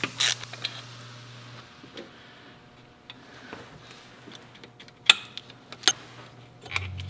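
A socket ratchet clicks once at the start. Then come scattered light clicks and taps of hands and tools working on engine-bay parts, with two sharp clicks about five and six seconds in.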